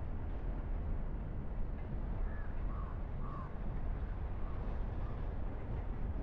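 Steady low rumble of a car driving along a road. About two to three and a half seconds in, a few short bird calls cut through, with fainter ones a little later.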